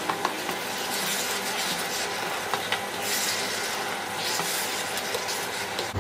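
Wooden spatula stirring and scraping grated raw papaya cooking in milk and ghee in a nonstick pan, over a steady sizzle, with occasional light clicks of the spatula against the pan.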